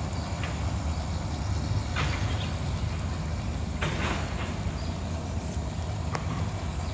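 Class M7 diesel locomotive approaching down the line, its engine a low, steady rumble. Two brief rushes of noise come about two seconds in and again near four seconds.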